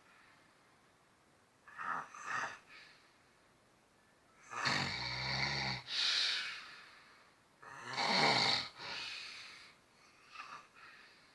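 A man snoring loudly, with each breath a separate noisy snore a few seconds apart. There is a short snore about two seconds in, a long rattling snore about halfway through, another loud snore around eight seconds in, and a faint breath near the end.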